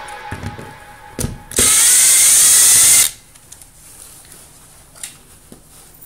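Makita cordless brushless impact driver running in a single loud burst of about a second and a half, driving a screw of an air conditioner's metal wall-mounting plate as the plate is taken down. A click just before it and a few light clicks after.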